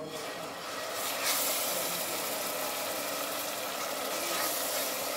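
Chopped peppers and onions sizzling in hot palm oil, a steady frying hiss that starts as they go into the pot and grows louder about a second in.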